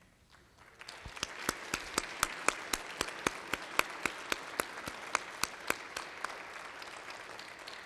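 A crowd applauding, starting about a second in, with one nearby pair of hands clapping louder than the rest at a steady four or so claps a second. The applause eases off near the end.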